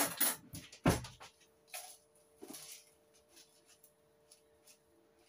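Kitchen handling noises as a plastic jar and utensils are moved over the bowl: a sharp clatter at the start and a dull thump about a second in, then a few faint clinks and rustles, over a faint steady hum.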